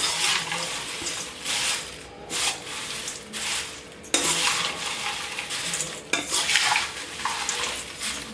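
A metal slotted spoon tossing dry fried cornflakes mix in a steel bowl: repeated rustling, crackling sweeps of the crisp flakes, with the spoon clinking and scraping against the bowl and a couple of sharper clicks about midway.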